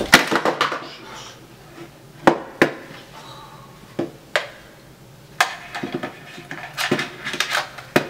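Handling noise from a cordless phone and its answering-machine base being set down and fiddled with on a table: a series of plastic clacks and knocks in short clusters, the loudest at the very start.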